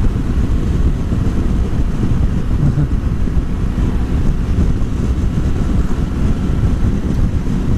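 Riding noise on the liquid-cooled BMW R1200GS: heavy wind rushing over the microphone, with the boxer twin running underneath at a steady pace.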